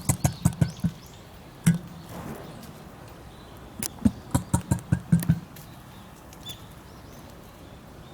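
An emu giving its low drumming call: two quick runs of deep pulses, about six a second, with a single pulse between them.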